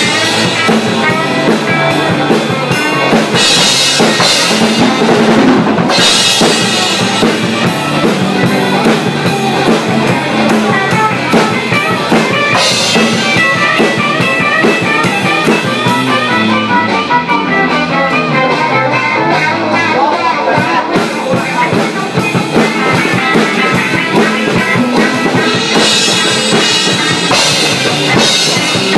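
Rock band playing loud and steady: drum kit with cymbal crashes, electric bass and electric guitars together, with the cymbals strongest near the start and near the end.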